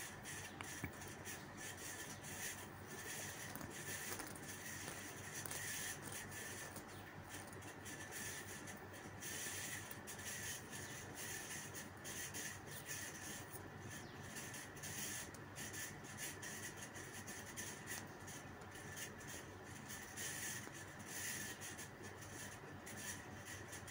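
Faint scraping and rustling of a flat steel spatula stirring sliced onions in a steel kadai, in irregular strokes.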